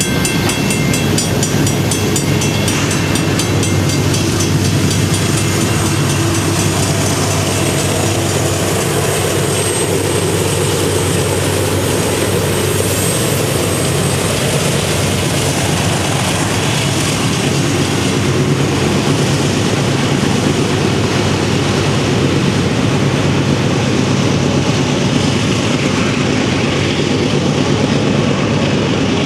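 Union Pacific diesel-hauled freight train passing close by: the locomotives' engines run with a steady low drone over the noise of the cars' wheels rolling on the rails. A grade-crossing bell rings steadily for the first few seconds, then fades out.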